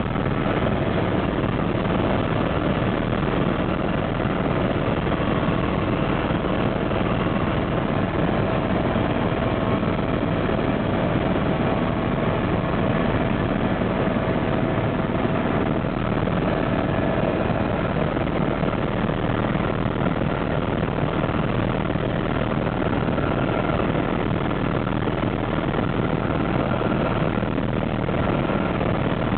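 Tour helicopter in steady cruise, heard from inside the cabin: a constant drone of engine and rotor with a steady whine over it.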